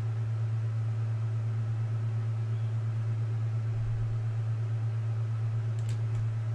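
Steady low background hum with a faint hiss, unchanging throughout, and two faint clicks near the end.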